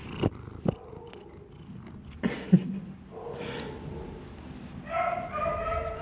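Long-haired cat purring in a low steady rumble, with a few sharp knocks of handling in the first few seconds. From about halfway, and louder near the end, a drawn-out whining cry joins it.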